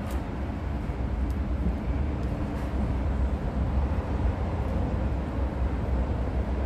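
Steady low rumble of background noise, with a few faint light clicks.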